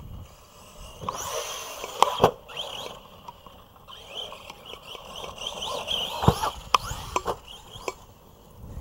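Arrma Big Rock V3 electric RC truck driving on a dirt bash track, its motor whining in short rising revs as it is throttled. Several sharp knocks of the truck landing and hitting the dirt, the loudest about two seconds in and again about six seconds in.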